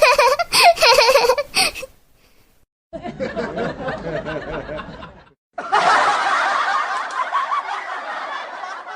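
Laugh sound effects played one after another: a laugh that ends about two seconds in, then a second laugh clip, then a third that starts with a jump in loudness and fades away near the end, with short silent gaps between them.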